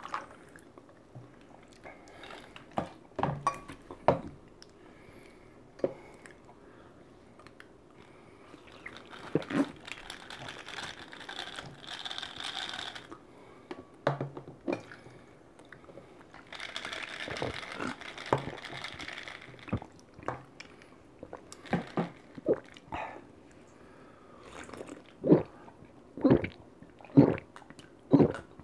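Sikhye poured from a plastic bottle into a glass, a hissing splash that runs twice for a few seconds each. Then loud gulping swallows, about one a second, as the drink is downed near the end.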